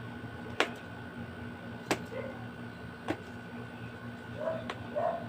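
Four sharp plastic clicks, roughly one a second, as stubborn packaging is worked loose by hand, over a faint steady hum.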